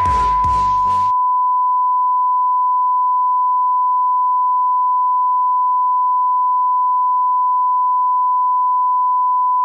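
Steady, unbroken 1 kHz reference tone of a colour-bars test signal. For about the first second, electronic music plays over it and then cuts off suddenly, leaving the tone alone.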